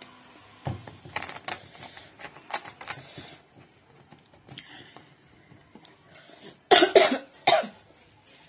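A woman coughs in a quick run of about four loud coughs about seven seconds in. Earlier there are lighter clicks and small mouth and handling noises while she eats.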